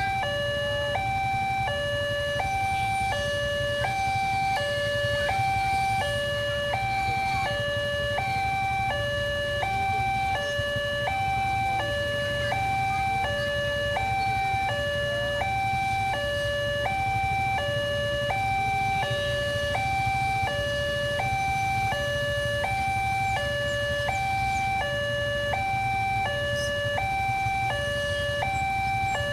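Railway level-crossing alarm sounding its two-tone electronic warning, a higher and a lower tone alternating evenly, each held about half a second, steady throughout. It signals that the crossing is closed for an approaching train.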